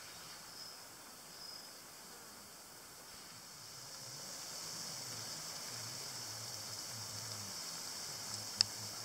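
Steady high-pitched outdoor hiss, insects or spraying water, growing louder about four seconds in, with a faint low hum beneath it. A single sharp click comes near the end.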